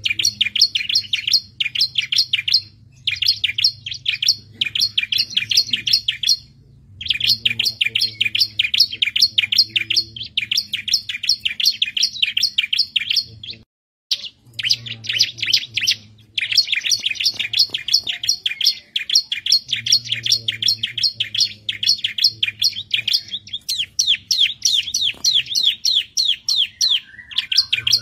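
Bar-winged prinia (ciblek) singing continuously: fast strings of high, sharp chirping notes, several a second, in phrases a few seconds long with short pauses between. A faint low hum runs underneath, and the sound cuts out completely for a moment about halfway.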